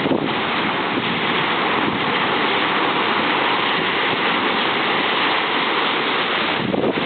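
Rough sea in the wake of a typhoon: surf and breaking waves making a steady, unbroken rush.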